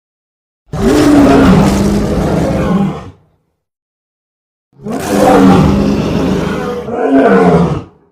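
Custom King Kong creature roar sound effect: a long roar about a second in, silence, then a second long roar near the middle that runs straight into a shorter third one near the end.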